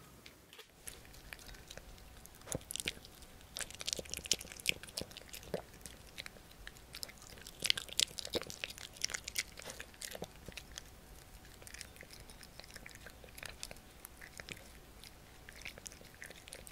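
A poodle chewing soft sweet-pumpkin yanggaeng jelly close to the microphone: a quick run of small wet smacks and bites, busiest about four and eight seconds in, then lighter and sparser.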